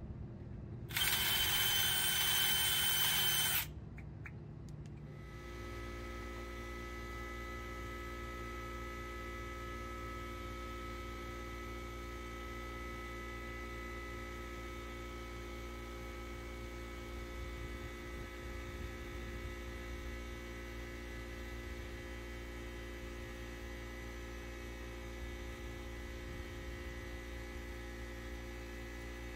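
A power tool runs in one loud burst of about two and a half seconds, starting and stopping sharply. After that comes a steady electrical hum made of several fixed tones.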